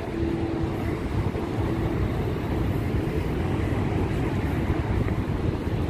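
Niagara Falls water rushing: a steady, unbroken noise, heaviest in the low range.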